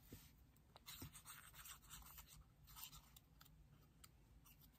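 Faint rustling and scratching of thin card being handled, with a few light clicks.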